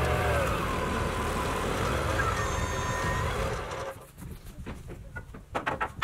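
Engine of a Wood-Mizer portable band sawmill running as the sawhead travels back along its track. About four seconds in the engine sound drops away sharply, leaving quieter clicks and knocks.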